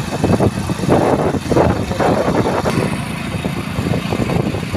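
Hero motorcycle's engine running as it rides along a street.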